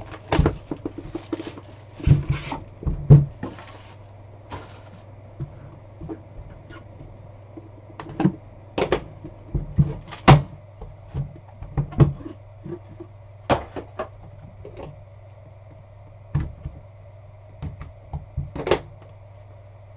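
Hands unwrapping and opening a sealed cardboard trading-card hobby box: a few seconds of crinkling plastic shrink-wrap, then scattered knocks, taps and scrapes as the cardboard box is opened and set on the desk.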